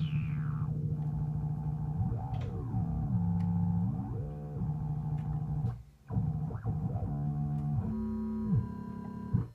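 Moog Werkstatt-01 analog synthesizer sounding a sustained tone. The pitch falls in a sweep at the start, then dips and climbs back several times between held steady notes, and cuts out briefly about six seconds in.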